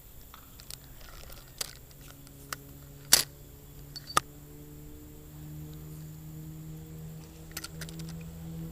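Scattered sharp clicks and knocks, the loudest about three seconds in and a quick cluster near the end, over a low steady hum that grows louder in the second half.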